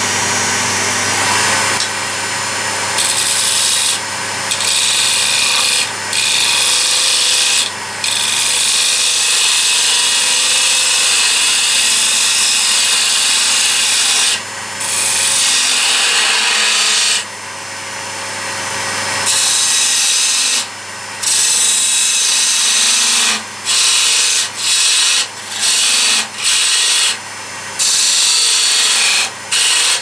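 A turning gouge cutting into a wooden blank spinning on a wood lathe, shaving it thinner: a steady cutting noise over the low hum of the lathe, broken by short gaps as the tool lifts off the wood. The gaps come several times in quick succession in the last few seconds.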